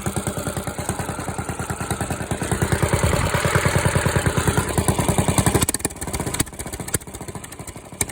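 Diesel engine with an enlarged exhaust pipe, its revs rising over a couple of seconds, held, then dropping back to idle about five and a half seconds in, each firing pulse heard through the exhaust.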